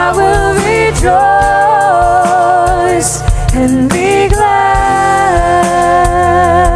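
A live contemporary worship band: a woman sings the lead melody in long held notes over acoustic guitar, keyboard and drums.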